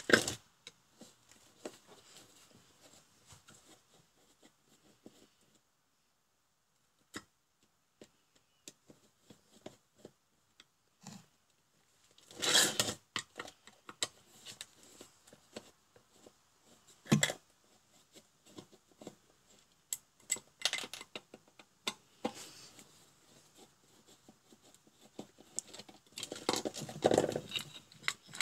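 Hands and a screwdriver working on a plastic electrical housing: scattered clicks, taps and knocks of screws, plastic and metal parts on a workbench, with a louder clatter near the middle and a longer stretch of handling noise as the case is pulled open near the end.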